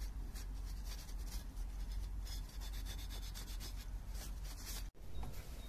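A cloth rag rubbing and scrubbing across an oily aluminium crankcase-breather cover, wiping off old crumbling sealant in a steady scratchy rhythm.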